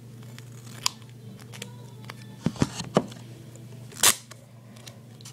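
Scissors and a strip of duct tape being handled: a few light clicks and taps, then one loud, short snip of the scissors cutting the tape about four seconds in.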